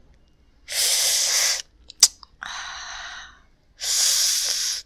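Tea being sipped from a cup in two loud, hissing slurps about three seconds apart. A sharp click comes about two seconds in, and a softer breathy sound follows it.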